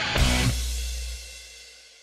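Outro music ending on a final drum and cymbal hit about a quarter of a second in, which rings on and fades away.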